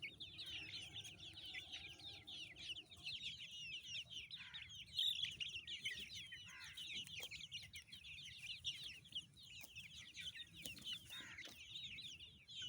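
A flock of chickens calling together: a dense, unbroken chorus of short, high, overlapping calls, with one louder call about five seconds in.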